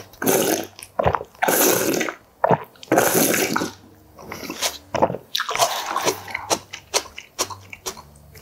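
Beef and radish soup broth slurped straight from a paper bowl: long slurps in the first half, then shorter, quicker sips.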